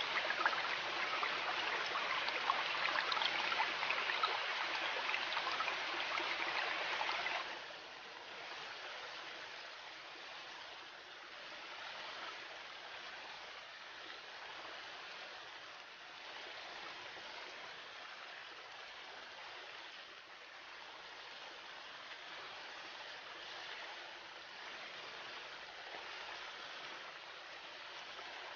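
River water flowing and rushing steadily. About seven and a half seconds in, it drops abruptly to a quieter, steady flow.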